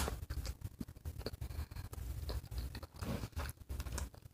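A person chewing a mouthful of spaghetti: a run of small, quiet mouth clicks.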